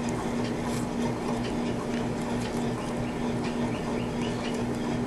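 Steady low electrical hum under a hiss, with quick high chirps repeating several times a second, like a small bird calling in the background, and a few faint clicks of handling.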